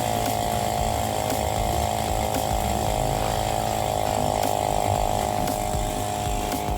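Small air compressor running steadily with an even mechanical hum, pumping air into a freshly mounted motorcycle tire to seat and inflate it.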